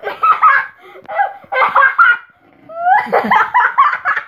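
A boy and a man laughing hard in three loud bursts, the boy's laughter high and rising.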